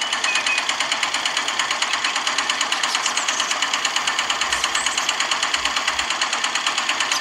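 Small motor of a miniature model tractor running with a rapid, even clatter, driving a belt-driven toy water pump.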